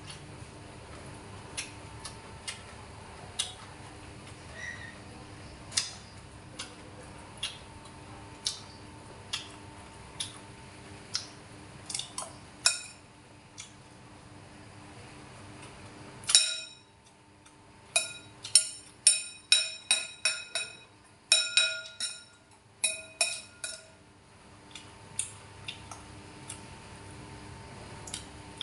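Metal spoon clinking and scraping against a ceramic bowl while eating. Single clinks come every second or so, then a quick run of about a dozen ringing clinks a little past halfway through.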